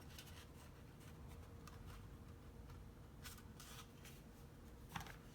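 Faint handling of cardstock paper, with a few brief scratchy rustles about three and a half seconds in and again near the end; otherwise near silence.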